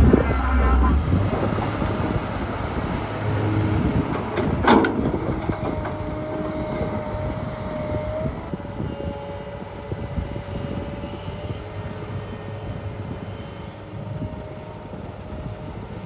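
Heavy excavator running, its engine rumbling with a thin steady whine over it, and a single sharp metallic knock about five seconds in.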